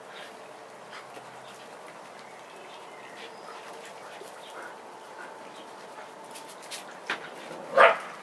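A dog gives one short, loud bark near the end, during rough-and-tumble play, with a brief sharp sound a moment before it. The rest is low and steady.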